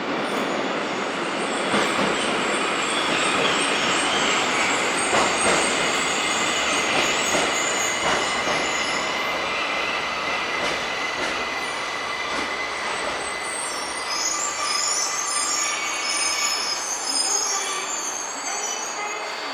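Tokyo Metro 1000 series subway train running into the platform, its wheels squealing high and shrill over steady running and rail noise. The train slows, and the noise eases off near the end.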